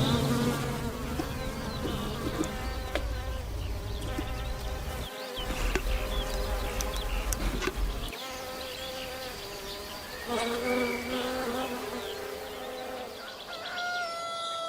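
Honeybees buzzing around flowers, several at once, their hum drifting up and down in pitch as they fly close and away.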